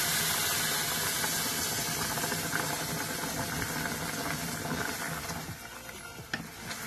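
Hot pan hissing and sizzling as coconut milk is poured over mango and dry fish frying in coconut oil. The sizzle fades gradually over several seconds as the milk cools the pan. A wooden spatula stirs the curry near the end, with a few light knocks.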